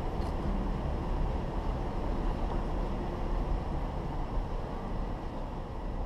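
A 4x4 driving along a dirt track: a steady, rough low rumble of the moving vehicle and wind over a microphone mounted outside on the hood.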